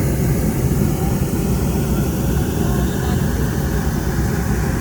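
Hot-air balloon's propane burner firing in a long, steady, loud blast.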